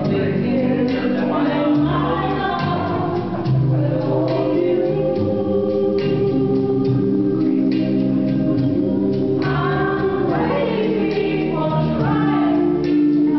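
Music with voices singing together, an upbeat song played for dancing.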